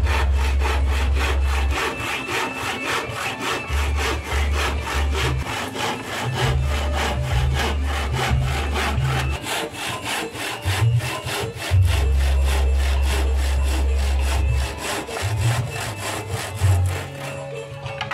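Handsaw cutting through a plywood panel in quick, even back-and-forth strokes that stop near the end. A deep bass line comes and goes underneath.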